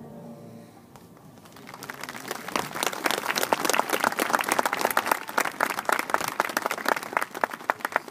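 The marching band's held chord dies away, and about a second and a half in an audience breaks into applause that builds to a dense clapping.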